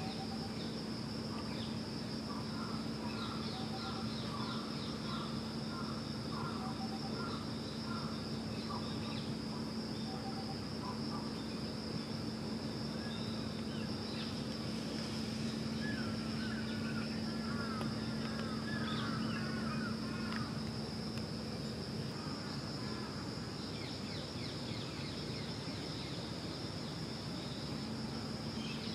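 Outdoor ambience: a steady high insect drone over a low steady hum, with birds chirping in short repeated calls through the first half and a quicker run of chirps about halfway through.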